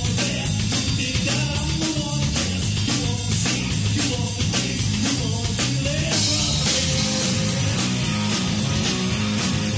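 Live rock band playing: electric guitar, electric bass and a drum kit, with a steady cymbal beat over a driving bass line.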